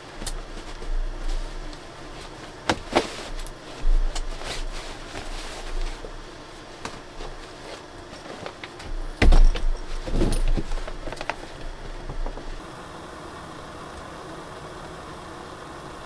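A synthetic-fabric bag is being handled and unpacked by hand: irregular rustling with several sharp clicks, loudest around two-thirds of the way through. It then cuts to the steady hiss of a small camping gas stove burner heating a pot.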